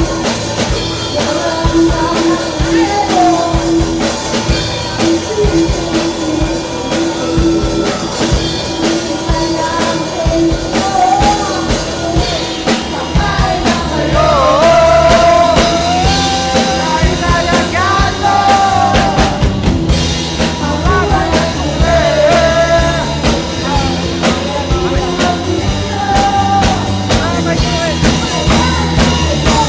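Rock band playing live: singing over a drum kit and band instruments, with drum hits keeping a steady beat.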